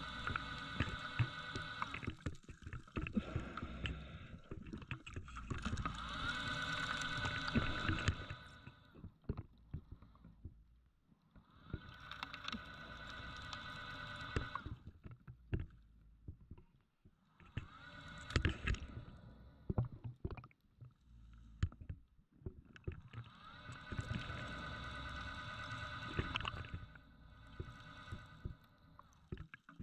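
A diver breathing through a scuba regulator, a hissing, bubbling breath about every five to six seconds. Between breaths, sharp clicks and knocks of shell and gravel shifting as the diver fans and digs into the seabed.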